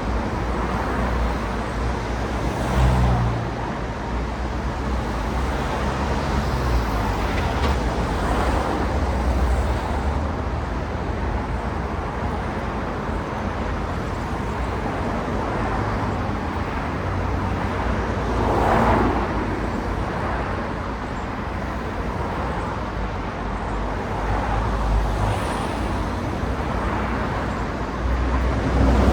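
Steady road traffic, with a low engine rumble under tyre noise. Single cars swell up and fade as they pass close by: a few seconds in, again about two-thirds through, and a louder one at the very end.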